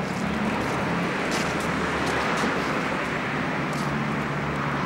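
Steady street traffic noise: an even haze of road noise with a low engine hum underneath.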